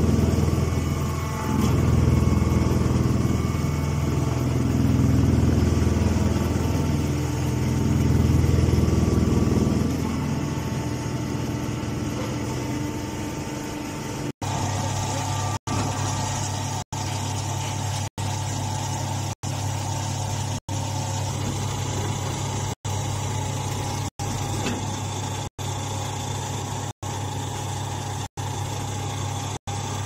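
Straw baling machinery running. A low rumble that rises and falls for the first fourteen seconds or so, then changes abruptly to a steady low hum. The hum is broken by brief dropouts about every second and a quarter.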